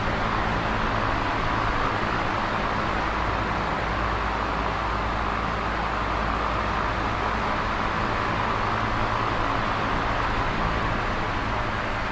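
Electric fan running steadily: an even whooshing airflow with a low motor hum underneath.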